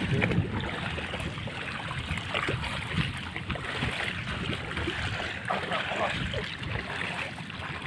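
Footsteps wading through shallow seawater over a rocky reef flat: a steady wash of water with many small, irregular splashes.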